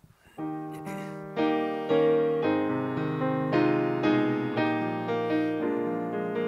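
Piano playing chords that ring and fade, a new chord struck every half second to a second, starting about half a second in.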